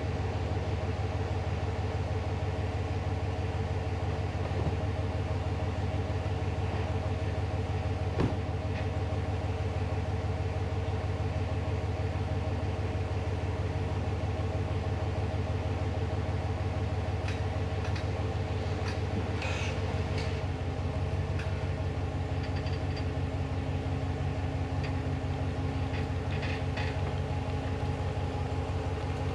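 Pickup truck engine idling steadily, a low even rumble, with one sharp knock about eight seconds in and a few faint clicks later.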